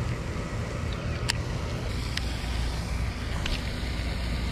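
Wind buffeting the microphone: a steady low rumble, with three faint sharp ticks spread through it.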